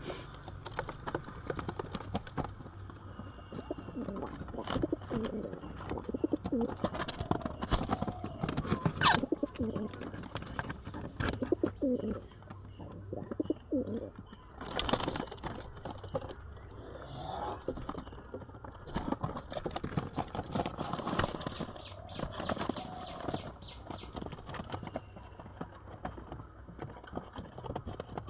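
Domestic pigeons cooing over and over, low calls that rise and fall, with a few sharp clicks or knocks in between.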